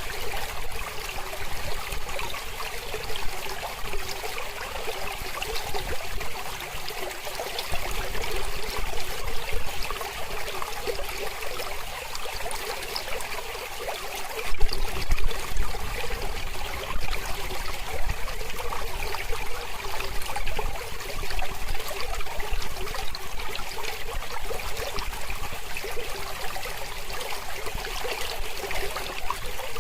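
Mountain river flowing: a steady rushing and trickling of water, briefly louder about halfway through.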